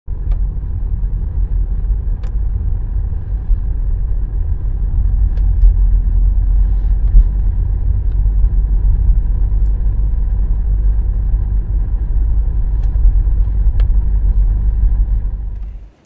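A steady low rumble like a car in motion, with a few faint clicks, cutting off abruptly near the end.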